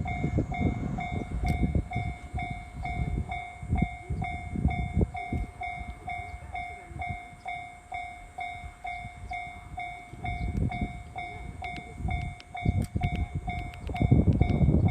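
Japanese railway level-crossing warning bell ringing, an even electronic ding repeated rapidly over a low rumble. The bell stops about fourteen seconds in, and a louder rumbling noise takes over.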